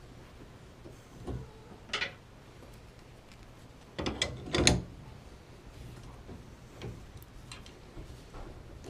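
Scattered clicks and knocks from hands working the parts of a Moen push-pull shower diverter valve during installation, with a louder cluster of knocks about four seconds in.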